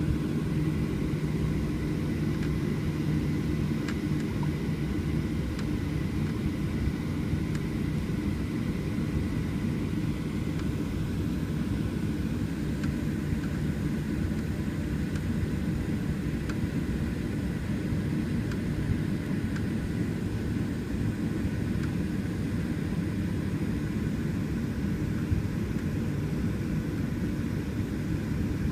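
Steady low rumble inside the cabin of a Boeing 737-800 taxiing onto the runway, its CFM56-7B engines at taxi idle. A low hum fades out a few seconds in.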